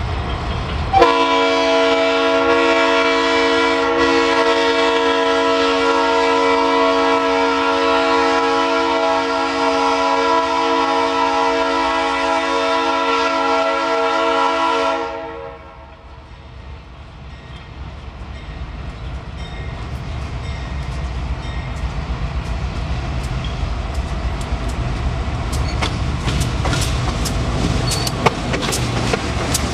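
Multi-chime air horn of a GE C40-8W diesel locomotive blowing one long blast of about fourteen seconds, which cuts off sharply. Then the locomotives' diesel engines run ever louder as they pass close by, with wheels clicking over rail joints near the end.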